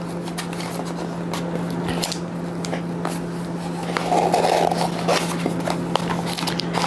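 Small cardboard box being worked open by hand: a run of scraping, rubbing and small clicks as its tight flaps are pried and pulled apart, with a longer rubbing scrape about four seconds in. A steady low hum runs underneath.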